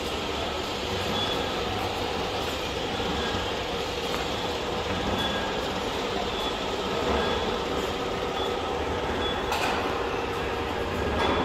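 Steady running noise of machine-shop machinery: an even mechanical hum with a few faint whining tones, and a short knock about ten seconds in.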